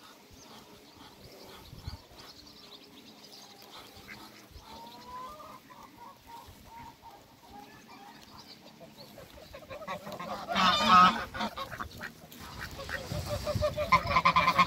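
Domestic geese and ducks calling: soft scattered calls at first, then a goose honks loudly about ten seconds in and again in a rapid string of honks near the end.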